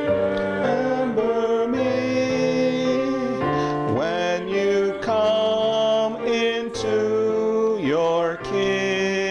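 Slow church chant sung in long held notes that slide between pitches, over a steady low accompaniment.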